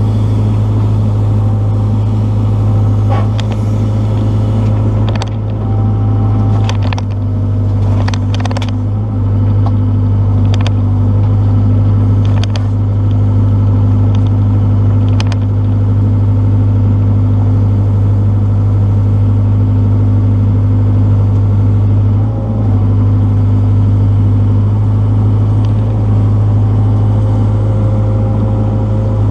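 Excavator's diesel engine running steadily and loud, with a scattering of sharp knocks and clanks through the first half.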